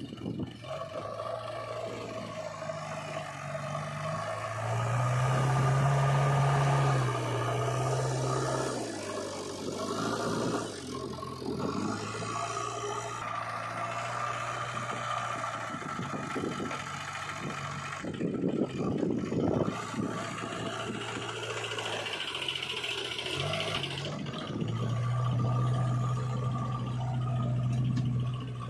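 JCB 3DX backhoe loader's diesel engine running and revving up twice under load as it works the soil, with farm tractor engines running alongside. About two-thirds of the way through there is a few seconds of clattering and scraping from the bucket and dirt.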